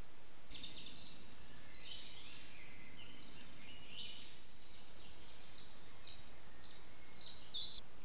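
Songbirds singing, a string of short high chirps and phrases, over a steady hiss from a trail camera's microphone; the birdsong starts about half a second in and cuts off just before the end.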